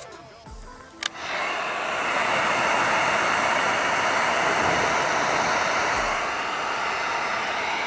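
Heat gun blowing a loud, steady rush of hot air. It is switched on with a click about a second in and cuts off suddenly at the end. It is heating the vinyl wrap to set it.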